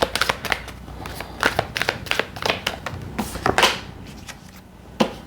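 A deck of oracle cards being shuffled by hand: a quick, irregular run of card clicks and slaps that thins out near the end, then one sharper snap as a card is pulled.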